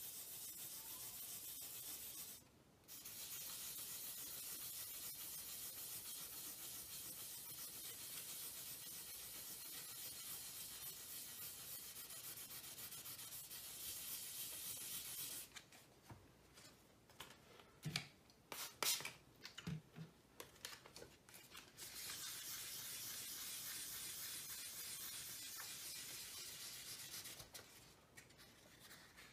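2000-grit wet sandpaper rubbed by a fingertip over dried touch-up paint on a painted metal freezer door: a steady fine hiss of wet sanding. It stops briefly a couple of seconds in, then pauses for several seconds past the middle, when a few light clicks are heard, before the sanding resumes and stops again near the end.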